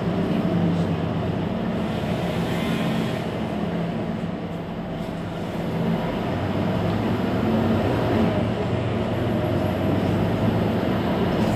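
Mercedes-Benz Citaro C2 Hybrid city bus idling at a stop: a steady low engine hum that eases off slightly a few seconds in and then comes back up.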